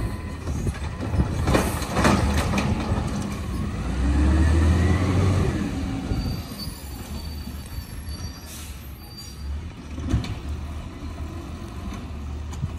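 Natural-gas-powered automated side-loader garbage truck pulling away, its engine pitch rising and then falling, loudest and deepest about four to five seconds in. Then a thin brake squeal and a short hiss of air as it stops at the next carts, with a knock near the end.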